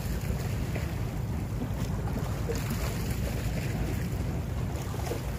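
Wind buffeting the microphone as a steady low rumble, over the wash of the sea.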